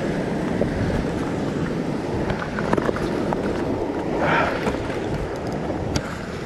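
Ocean swell washing and breaking against a rock ledge, with wind buffeting the microphone; a brief louder rush of water about four seconds in.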